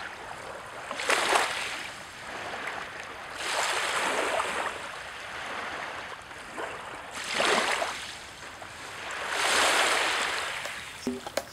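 Small waves washing up a fine-pebble beach and drawing back, four swells of surf about every two to three seconds.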